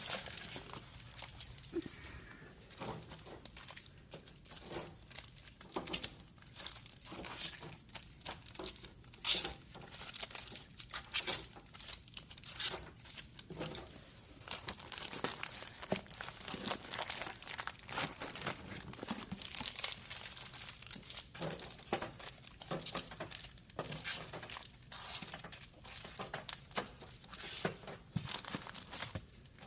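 Plastic snack bags crinkling and rustling in many short, irregular crackles as they are handled and loaded into a vending machine.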